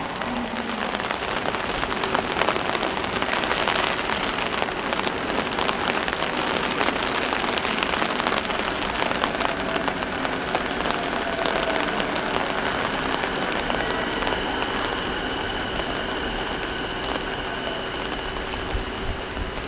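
Steady heavy rain falling on the station platform and tracks, a dense even hiss. In the second half faint steady tones come in under the rain, from a Keihin-Tohoku Line E233-series electric train pulling into the platform.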